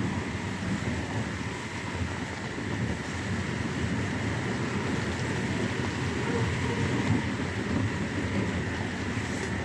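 Small car driving along a road, a steady rumble of engine and road noise heard from inside the cabin with a window open.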